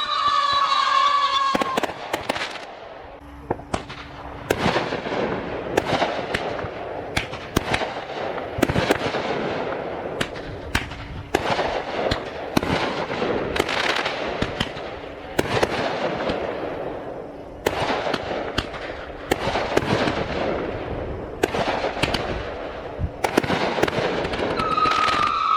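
Fireworks going off: a dense run of sharp bangs and crackling bursts, several a second, with a pitched whistle gliding downward at the start and again near the end.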